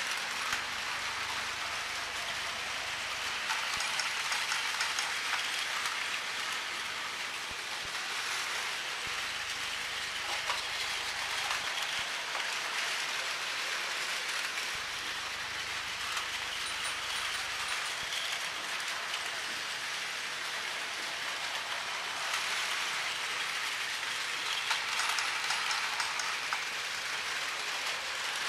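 Several battery-powered Plarail toy trains running at once on plastic track: a steady whirring and rattling clatter of small motors and wheels, swelling a little at times as a train passes close.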